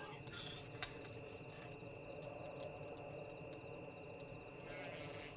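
Faint, quiet background ambience with a thin steady high tone and scattered soft ticks; one sharper click a little under a second in.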